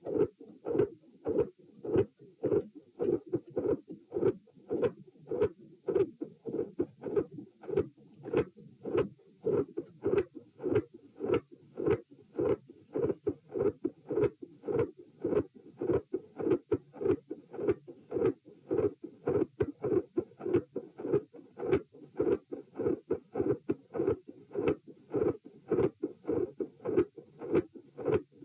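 Heart sounds heard through a stethoscope at the pulmonary area, beating in a steady, regular rhythm: a quiet first sound and a loud second sound with a fixed split. A fixed split second sound is classically associated with an atrial septal defect.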